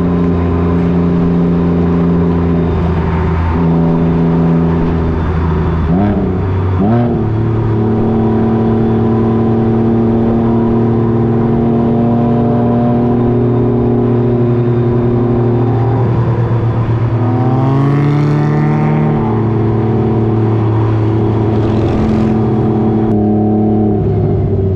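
Motorcycle engine running under way, holding steady revs that change in steps, with quick revs about six and seven seconds in and a rise in pitch as it accelerates about two-thirds of the way through.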